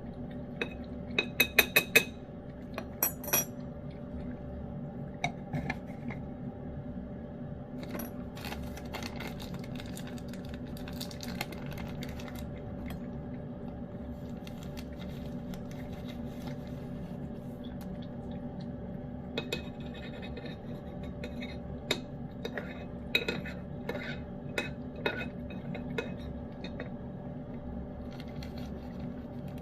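Cat eating wet food from a dish, its teeth and tongue clinking and scraping against the bowl. A cluster of sharp clinks comes in the first few seconds, and more scattered clinks and scrapes follow about eight and twenty seconds in.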